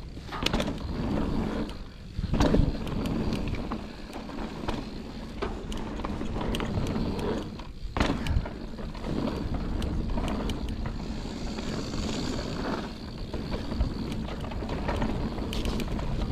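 Mountain bike riding downhill on a dirt trail: a steady rumble of tyres and wind on the helmet-mounted camera, with frequent knocks and clatter as the bike goes over bumps.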